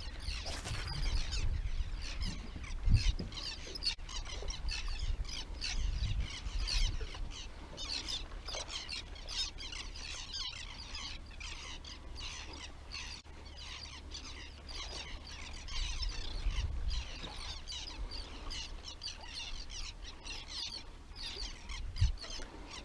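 Birds chirping and calling steadily over a low rumble, with a few dull thumps.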